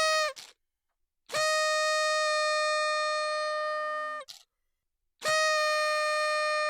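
Party horn blown in three blasts, each a single steady note. The first is a short blast ending just after the start, the second is long at about three seconds, and the third starts near the end.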